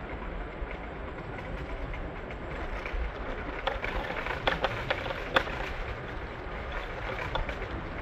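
PATH subway train running on the rails, a steady low rumble with sharp clicks and clacks clustered in the middle.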